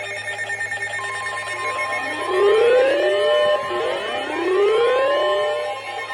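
Emergency weather alert alarm going off: a series of overlapping, siren-like rising sweeps over a steady high tone that comes in about a second in, announcing a new warning.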